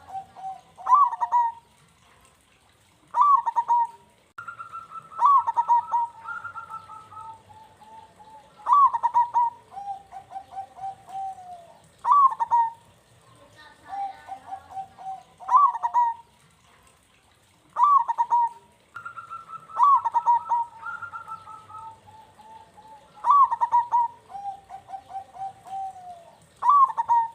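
Zebra dove (perkutut) singing its cooing song: the phrase repeats about every three seconds, each opening with a sharp rising note and running on into a string of quick coos.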